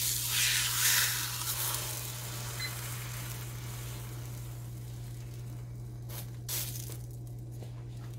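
Wet underside of rolled naan dough sizzling on a hot iron tawa as it is pressed down, loudest in the first second or two, then settling into a steady, quieter sizzle. A steady low hum runs underneath, with a couple of soft knocks about six seconds in.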